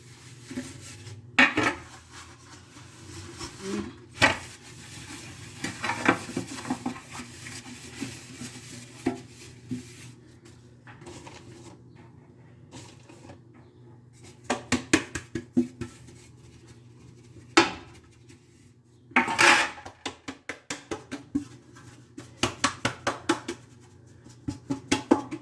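Metal baking pans being handled and greased: clattering and knocks of the pans, with rubbing between, and runs of quick repeated knocks several times.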